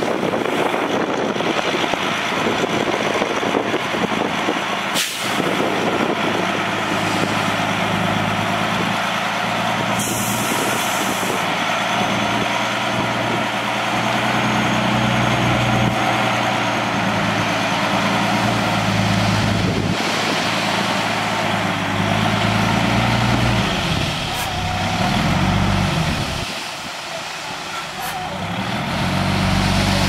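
Heavy dump truck's diesel engine running under load while its hydraulic bed tips up and the sand load slides out, with a broad hiss over the engine and a single knock about five seconds in. Near the end the engine dips, then revs up and down twice.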